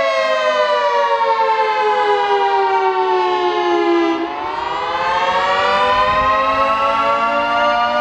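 Federal Signal 3T22 three-tone rotating siren sounding the attack (wail) signal. Its chord of several tones falls in pitch for about four seconds, then rises again.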